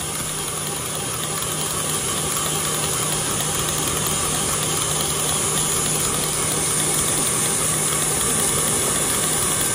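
Electric stand mixer running steadily at speed, its wire whisk beating boiled icing (egg whites and hot sugar syrup) toward stiff peaks, with a steady motor hum under the whisking noise.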